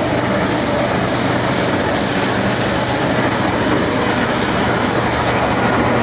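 MTR Island Line metro train heard from inside the car while running: a steady rumble and rush of wheels on rail, with a steady low hum and a high whine.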